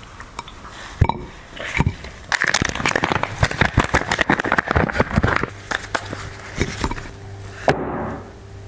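Dog chewing and crunching food, a dense run of crackling crunches for a few seconds in the middle, with scattered clicks before and after.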